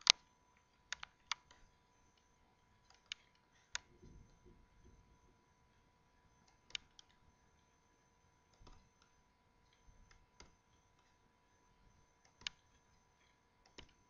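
Computer mouse clicking: about ten single sharp clicks, irregularly spaced a second or more apart, over a faint steady hum.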